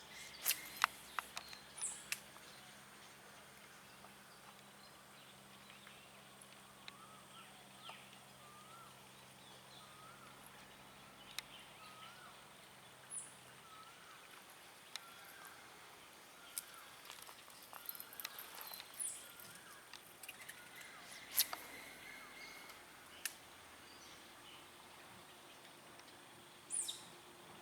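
Quiet outdoor ambience with small birds calling: many short repeated chirps, a few high thin descending notes, and a faint steady high tone. Scattered sharp clicks are heard, the loudest about a second in and about 21 seconds in.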